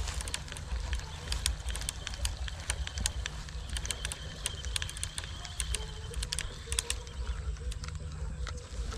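Wind rumbling on the microphone, with many light clicks at irregular intervals.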